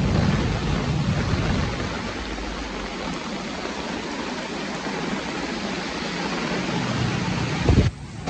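Heavy rain pouring down in a storm with strong wind, the gusts buffeting the microphone with low rumbles for the first couple of seconds. A brief low thump comes near the end.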